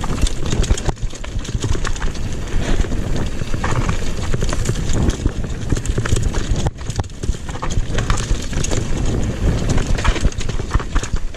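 Mountain bike rattling over a rough dirt trail at speed: a continuous run of sharp knocks and clatter from the bike and its wheels over bumps, over a heavy low rumble of wind on the action camera's microphone.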